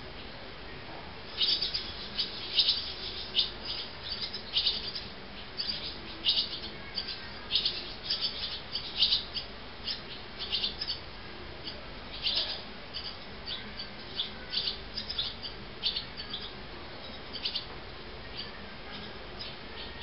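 Barn swallows chirping: a rapid, uneven run of short, high chirps that starts about a second and a half in and thins out near the end.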